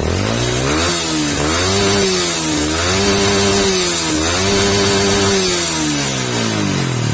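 Yamaha R15 v2's single-cylinder four-stroke engine revved three times, its pitch rising and falling back toward idle with each blip of the throttle. It is running on a substitute XRM-type spark plug after the original plug failed, and the owner finds the throttle response slightly delayed.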